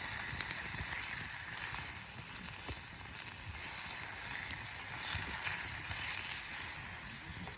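Campfire cooking: a steady hiss with scattered small crackles and pops from the fire and the food over it.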